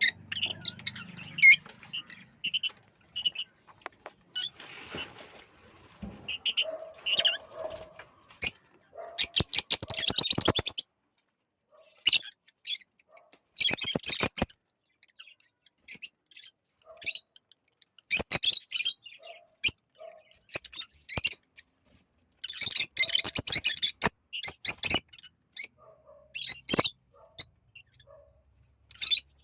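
Ringneck parakeets calling in bursts of short, high chirps and squeaks, with stretches of rapid clicking chatter, the two longest about a third and four fifths of the way through.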